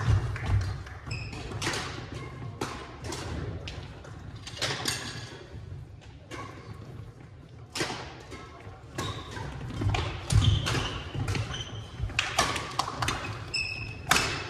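Badminton rally: sharp cracks of rackets striking the shuttlecock, with sneakers squeaking and feet thudding on the wooden court floor. The sound carries in a large gymnasium hall.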